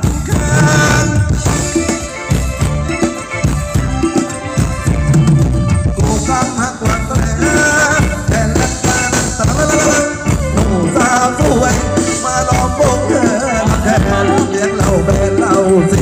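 Live band playing Thai ramwong dance music: a wavering melody line over a steady beat.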